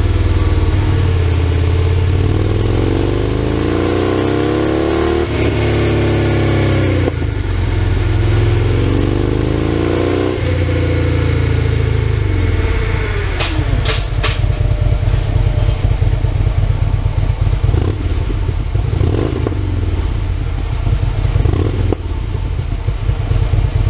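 Harley-Davidson Road Glide V-twin breathing through Fuel Moto E-Series baffled mufflers on the stock head pipe, revved on a dyno. The revs climb steadily twice and drop back. About twelve seconds in they fall away, with a couple of sharp pops, and the engine settles into a lumpy, uneven idle.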